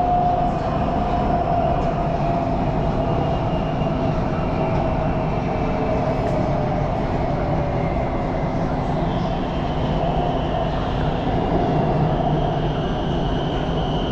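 Elevated electric metro train heard from inside the car: a steady rumble of wheels on rail, with a motor whine sliding slowly down in pitch. About two thirds of the way in, a higher whine rises as the train slows into a station.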